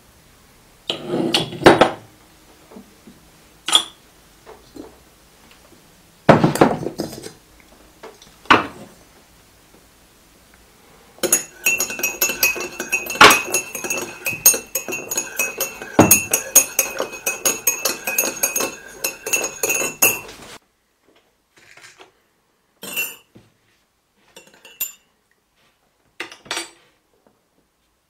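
Teaspoon stirring coffee in a small porcelain cup: a rapid run of metal-on-porcelain clinks with a ringing tone, lasting about nine seconds in the middle. Before it come a few separate knocks of porcelain and metal being handled and set down, and after it a few light clinks.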